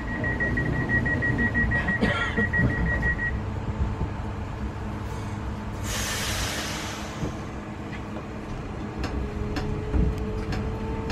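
Inside a Newag Impuls 2 electric train: a fast-pulsing high beep, the door-closing warning, sounds and stops about three seconds in. About six seconds in comes a short hiss of air. Near the end the traction motors' whine starts and rises in pitch as the train pulls away.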